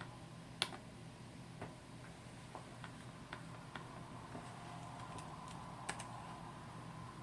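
About a dozen sharp, irregular clicks, faint apart from a louder one about half a second in and a pair near six seconds, over a low steady electrical hum.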